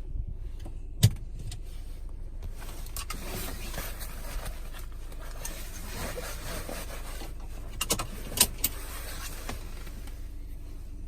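Hyundai Creta 4WD running: a steady low rumble with hiss over it, broken by a few sharp knocks, the loudest about a second in and two more near the end.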